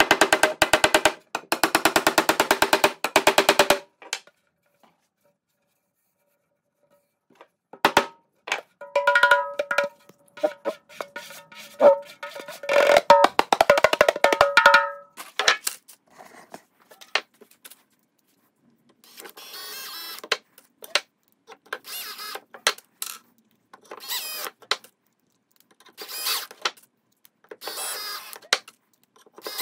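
A 10-inch MEINL pandeiro frame with a new natural-skin head and no jingles fitted, played by hand: a fast run of strokes, a pause, then several seconds of strikes that leave a ringing pitch. From about two-thirds of the way in, a DeWalt cordless drill runs in short bursts as it bores into the wooden frame.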